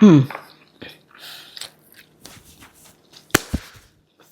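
Eating sounds from a person tasting food: faint soft chewing noises, then two sharp clicks close together about three and a half seconds in. A short voiced murmur ends just at the start.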